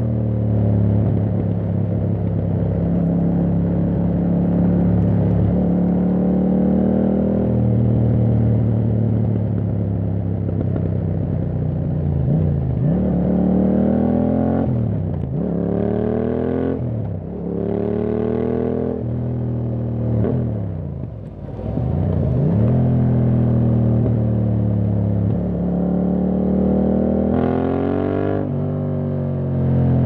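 A 2021 Yamaha MT-07's parallel-twin engine running through an Akrapovic full carbon exhaust. It cruises steadily at first. About halfway it accelerates through three quick upshifts in a row, the pitch climbing and then dropping at each shift, before a short roll-off and another pull with a shift near the end.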